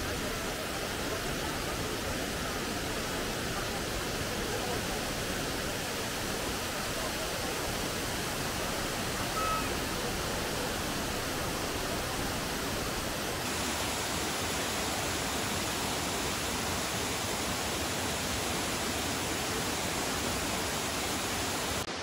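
Kravice waterfalls' tufa cascades rushing, a steady, even noise of falling water.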